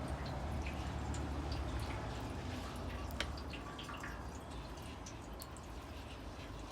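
Liquid dripping and trickling with scattered light clicks while an automatic-transmission part is washed clean.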